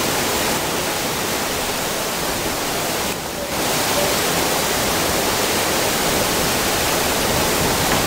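Steady rush of water driving the water-powered sawmill's wheel, with a brief dip about three seconds in.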